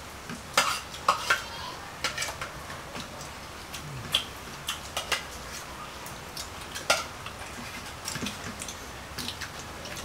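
Plates, bowls and a spoon clinking and tapping while people eat: scattered light clicks, with louder knocks about half a second and a second in and again near seven seconds.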